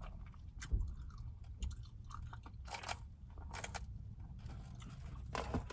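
Close-up chewing of fried fast food, with a handful of short, crisp crunches at irregular intervals.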